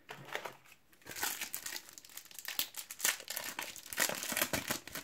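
Foil Topps Match Attax trading-card pack crinkling as it is handled and torn open, with irregular crackles and rustles.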